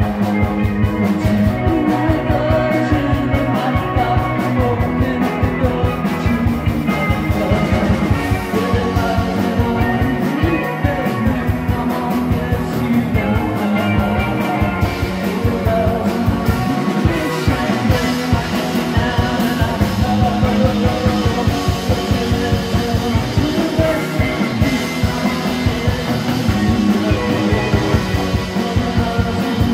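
A rock band playing live: a distorted electric guitar through an amp over a drum kit with a steady beat.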